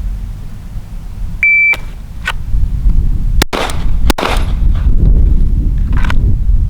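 Electronic shot-timer start beep, then about two seconds later two quick 9mm pistol shots from a Glock 19, about 0.7 s apart, over a steady low rumble.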